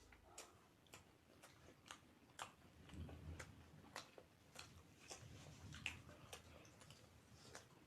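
Faint chewing while eating dumplings: irregular soft wet mouth clicks, roughly two a second.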